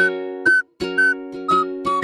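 Background music: a whistled tune over strummed chords, with a chord struck about every half second.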